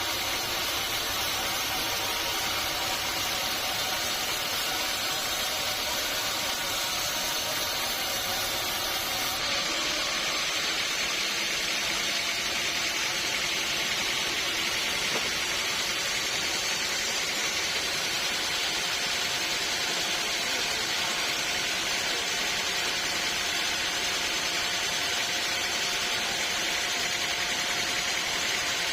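Sawmill saw running steadily through teak wood, an even, unbroken noise with a faint machine hum under it; its sound changes slightly about nine seconds in.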